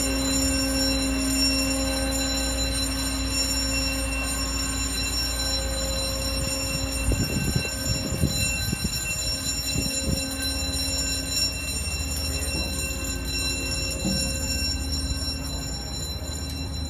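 Steady machine hum at one constant pitch, with a deep rumble underneath that drops away about seven seconds in, and a few knocks in the middle.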